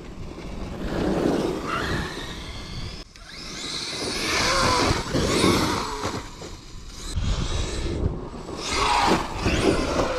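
Arrma Outcast 8S EXB RC car's brushless motor and drivetrain whining up and down in several bursts of throttle as it accelerates and slows across the grass, with wind buffeting the microphone.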